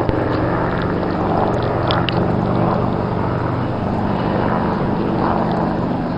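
Enstrom 480B turbine helicopter running steadily: an even engine and rotor drone that holds one pitch throughout.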